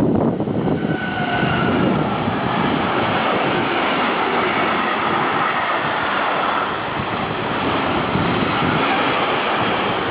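A train passing close by at speed: a steady rush of wheel and rail noise, with a faint whine that sinks slightly in pitch a second or two in.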